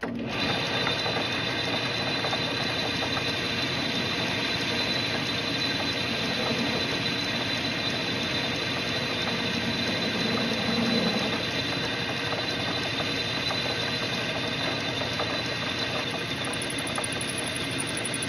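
Metal lathe switching on abruptly and running steadily, its cutting tool turning the threads off the end of a Grade 8 steel bolt.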